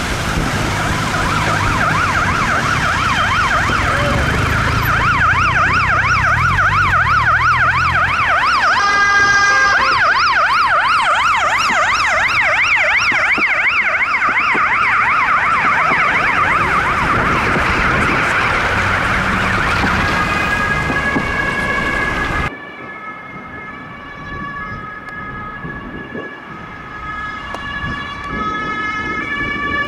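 Swedish ambulance siren in a fast wail, rising and falling several times a second, with a heavy bus engine rumbling past during the first several seconds and a brief change of tone about nine seconds in. About two-thirds of the way through it cuts abruptly to another ambulance's quieter two-tone siren stepping back and forth between fixed pitches.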